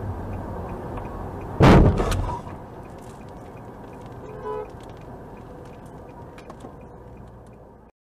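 A dashcam car's steady road noise with one loud, sharp bang about two seconds in. A brief pitched tone follows a little past halfway, and the sound cuts off just before the end.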